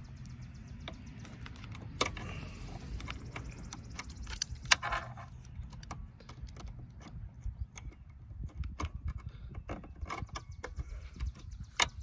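Scattered plastic clicks and small rattles of hands prying the plastic pieces of a seatbelt buckle housing and its wiring connector loose, with one sharper click about five seconds in, over a steady low rumble.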